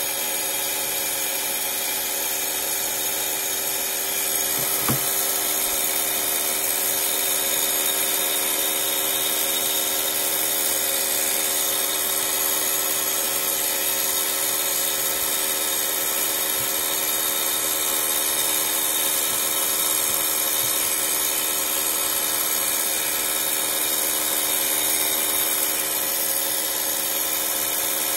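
Hand-held blow dryer running steadily, heating a vinyl skin so it shrinks down onto a curved phone, with a faint tap about five seconds in.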